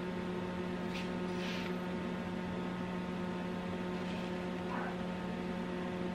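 Steady electrical hum throughout, with faint soft hisses of caster sugar being spooned into a plastic mixing bowl about a second in and again near five seconds.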